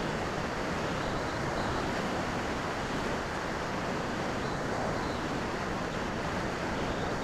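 Steady rush of wind blowing over the onboard camera of a Skywalker FPV plane gliding with its motor switched off.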